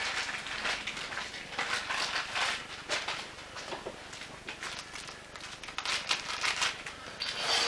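Rustling and light clicks of things being handled, in irregular bursts.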